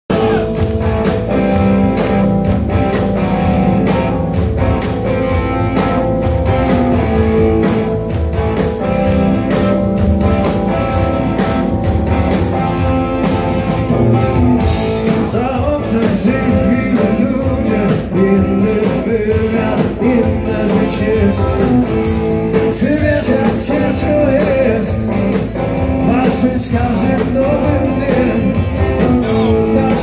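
Blues-rock band playing live, with electric guitars, drums and keyboards, heard from within the audience; a man's singing voice comes in about halfway through.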